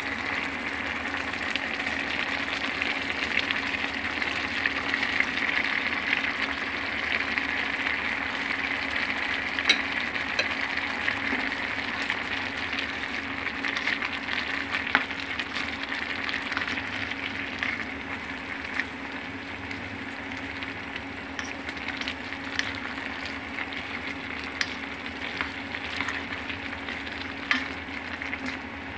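Food sizzling steadily in a frying pan as it is stirred, with occasional sharp clicks of a utensil against the pan. The sizzle eases a little past the halfway point.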